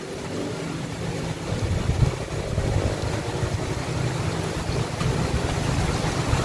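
An engine running steadily under heavy wind rumble on the microphone, which grows louder about a second and a half in.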